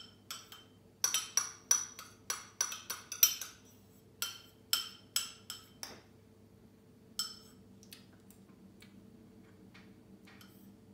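Metal teaspoon clinking against the inside of a small ceramic cup as dalgona coffee foam is whipped by hand. The ringing taps come quickly, about five a second, then slow after about three seconds and thin out to a few faint ticks in the second half.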